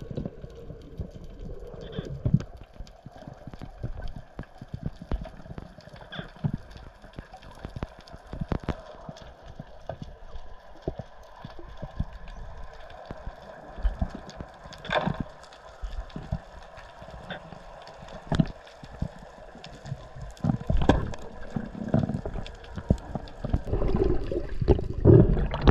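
Underwater sound picked up through a camera's waterproof housing while freediving: irregular muffled knocks and clicks over a dull background. Heavier thumping comes near the end, as a speared triggerfish is handled.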